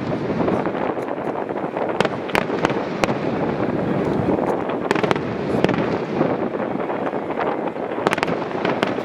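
Fireworks display going off: a dense, continuous rumble of aerial bursts with crackling and many sharp bangs, coming in thicker clusters about two, five and eight seconds in.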